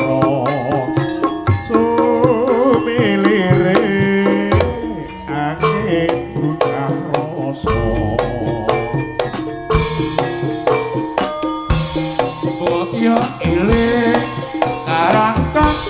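Live jaranan sentherewe music from a Javanese gamelan ensemble: drums and percussion keep a steady, driving beat, with a wavering melody line over them.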